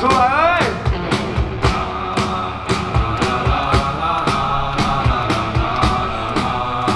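Rock band playing live: drums keep a steady beat under sustained guitar chords, with a wavering, bending note in the first second.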